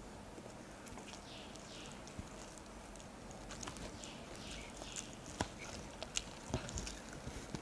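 Fingers mixing rice and chicken curry on a plate: faint soft squishing with scattered light clicks, a few sharper clicks in the second half.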